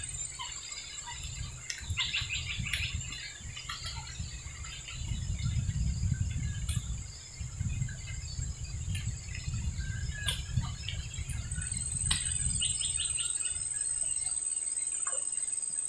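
Outdoor riverside ambience: birds chirping in quick runs of repeated notes, twice prominently, over a steady high-pitched insect drone, with a low rumble underneath.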